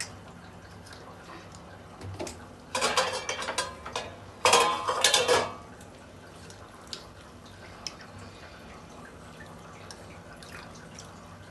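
Soaked rice being tipped into a large aluminium pot of boiling water: two splashing pours, about three seconds in and again about four and a half seconds in.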